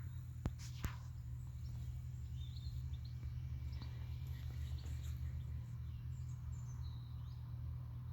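Open-field ambience: a low steady rumble with faint, scattered bird chirps, and two short clicks within the first second.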